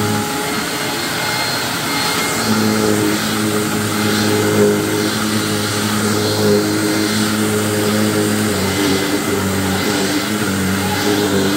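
Hoover WindTunnel self-propelled upright vacuum running, a steady motor whine and airflow rush. The pitch shifts a couple of times, and the hiss swells every second or two as the vacuum is pushed back and forth.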